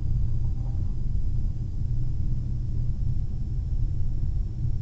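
Steady low rumble of background noise with a faint, thin high whine running through it.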